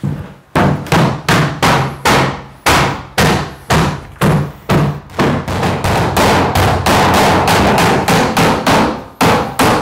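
Hammer driving nails into wooden floorboards, with a steady run of sharp blows at about three a second.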